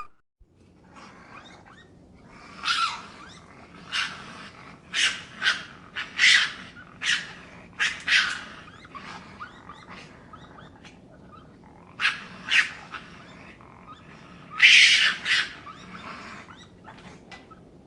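An animal calling over and over in short, sharp cries at irregular intervals, with the loudest cry about fifteen seconds in, over a steady background hiss.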